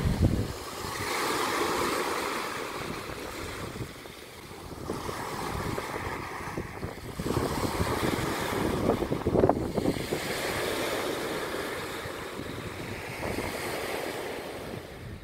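Small waves breaking and washing up a sand beach, the surf swelling and fading every few seconds, with wind buffeting the microphone.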